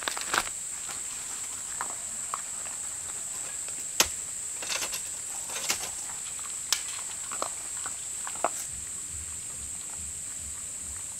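Insects chirring outdoors in a steady high-pitched drone, with scattered sharp clicks and snaps at irregular intervals, the loudest about four seconds in.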